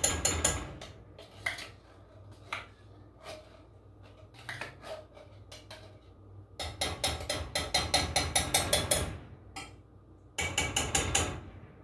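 Kitchen cookware and utensils clattering as they are handled: a short rattle at the start, a few single knocks, a long run of rapid rattling in the second half, and a last short burst near the end.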